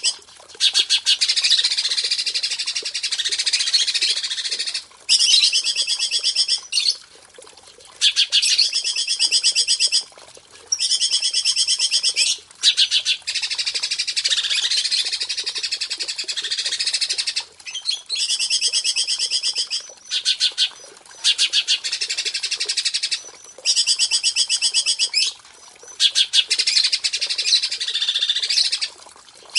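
A songbird singing long, rapid trilled phrases, each a second and a half to four seconds long, with short pauses between them. It is a masteran recording, bird song played to caged songbirds for them to copy or to coax them into singing.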